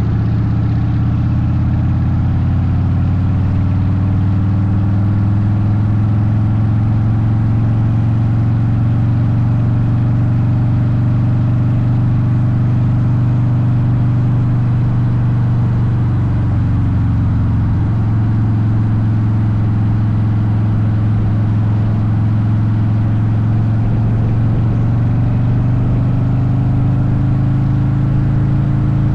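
Harley-Davidson Softail Deuce V-twin with Vance & Hines exhaust running steadily at road speed. The engine note dips briefly a little past halfway, then slowly climbs again.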